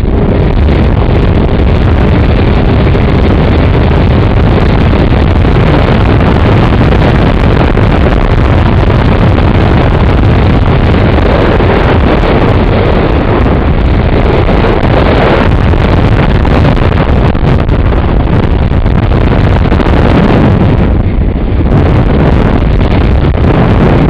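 Loud, steady wind noise buffeting the microphone of a camera mounted on the wing of a Multiplex Blizzard RC plane in flight in strong wind, with the plane's electric motor and propeller running under it.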